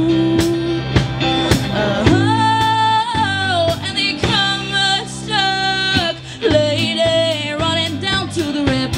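Live rock band playing: a female lead singer holds long, sliding wordless notes over guitar, bass and a steady drum beat.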